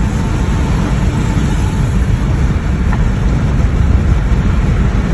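Steady road and engine noise inside a car travelling at highway speed, a dense low rumble without breaks.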